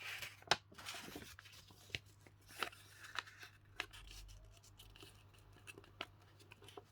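A sheet of A4 paper being folded and creased by hand: a rustle at first, then scattered sharp crackles and ticks as the fold is pressed flat.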